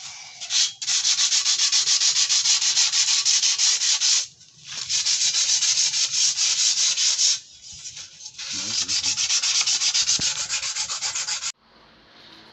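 Sandpaper rubbing old paint off an aluminium bicycle frame in quick back-and-forth strokes, about five or six a second. It comes in three long runs with two short pauses and stops about a second before the end.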